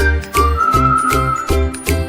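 Upbeat background music with a steady bass beat, tinkling bell-like notes and a whistled melody.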